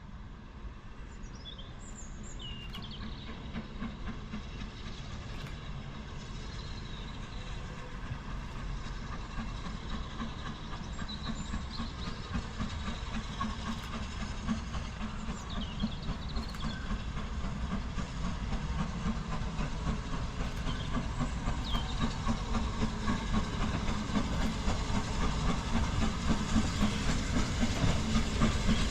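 Steam locomotive approaching, its rhythmic beat growing steadily louder throughout, with birds chirping faintly over it.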